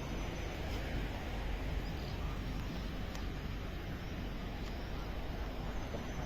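Steady outdoor background noise: an even low rumble with hiss, with a few faint ticks.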